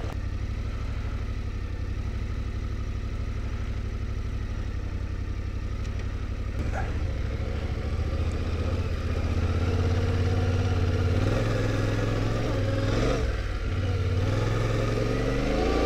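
Adventure motorcycle engine running at low revs while the bike is ridden slowly through soft sand, the throttle easing off briefly about three-quarters of the way through and then the revs climbing again near the end.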